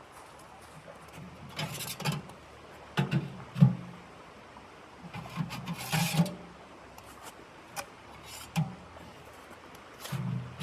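Irregular knocks and thuds in short clusters, the loudest a little after three and a half seconds in, over a faint steady hiss.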